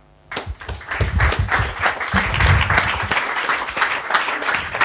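Small audience applauding, the clapping starting about a third of a second in and carrying on steadily.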